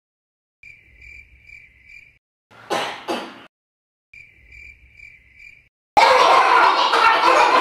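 Cricket chirping in two short, even runs of chirps, about two or three a second. Between them come two brief bursts of noise, and near the end a much louder burst of noise takes over.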